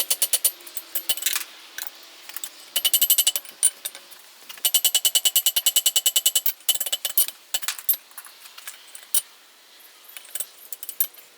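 Hammer striking hot steel on an anvil in quick runs of ringing blows, at times about ten strikes a second, while closing a forged loop.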